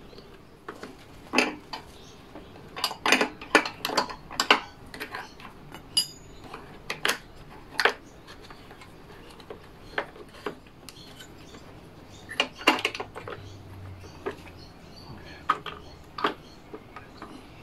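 Scattered metallic clicks and clinks of small engine parts being handled: a decompression valve being fitted to a Victa two-stroke lawnmower engine. Some come in quick clusters of several.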